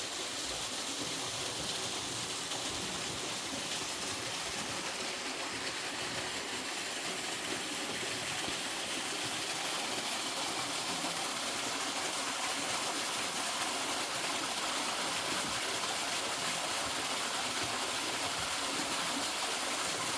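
Waterfall pouring steadily onto rock, an even, unbroken rush of falling water.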